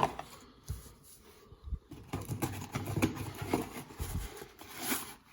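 Small plastic stand parts being handled: scattered light knocks and clicks, with a few dull thumps.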